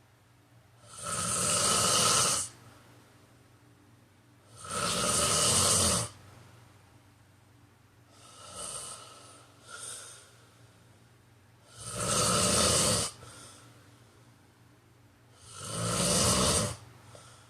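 A man snoring in his sleep: four long, loud snores, each lasting about a second, with two fainter, shorter breaths in the longer gap between the second and third.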